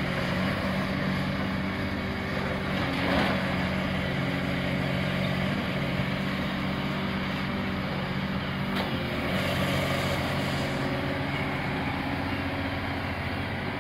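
Diesel engine of heavy demolition plant running steadily with a low, even hum. There are a couple of faint knocks, about three seconds in and again near nine seconds.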